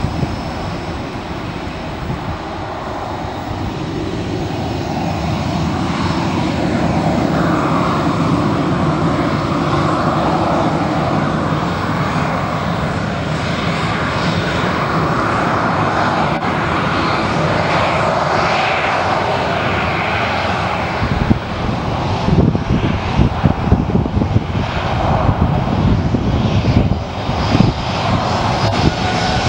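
Boeing 737-900's CFM56 turbofan jet engines at taxi power, a steady rumble with a whine, growing louder as the airliner turns and comes past side-on. The sound turns choppy and uneven in the last several seconds.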